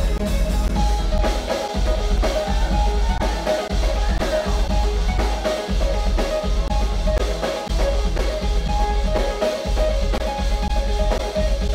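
Background music with a drum-kit beat over a bass line that moves to a new note about every two seconds, with held tones above.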